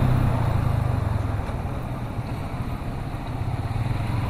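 A vehicle on the move: a steady low rumble of engine and road or wind noise, easing a little in the middle and building again near the end.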